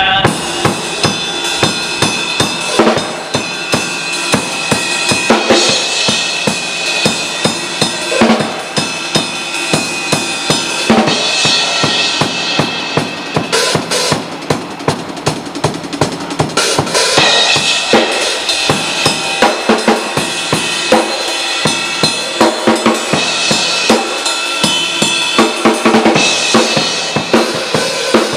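Drum kit played loudly in a fast beat, with bass drum, snare and cymbal crashes.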